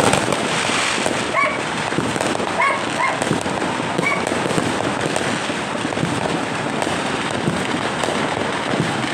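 Fireworks and firecrackers going off in a dense, continuous crackle of pops and bangs, with a dog barking a few times in the first half.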